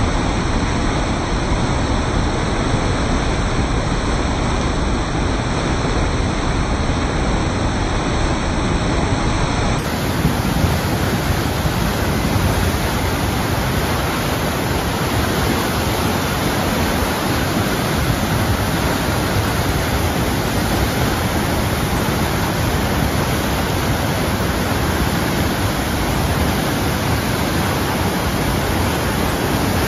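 Muddy floodwater of a swollen river rushing and churning over a bank of mud and debris, a loud, steady rush of water. The sound turns brighter and hissier about ten seconds in.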